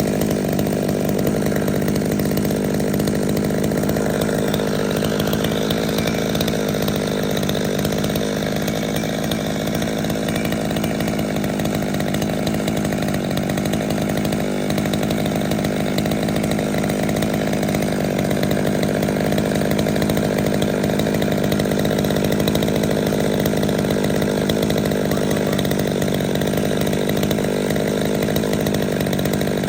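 Holzfforma G111 two-stroke chainsaw engine running steadily at an unchanging speed, during retuning of a saw that had been running rich.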